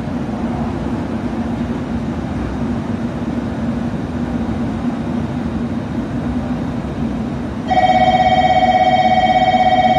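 Station platform background noise with a steady low hum, then, about three-quarters of the way through, a loud electronic bell starts ringing: a fast, warbling ring of several tones, the platform's warning bell for an approaching train.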